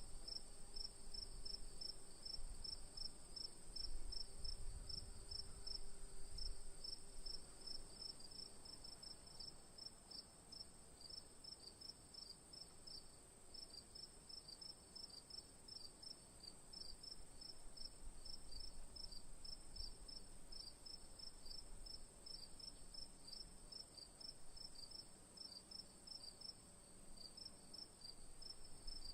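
Crickets chirping in a rapid, even series of short high-pitched pulses, about five a second, over a steady higher-pitched tone.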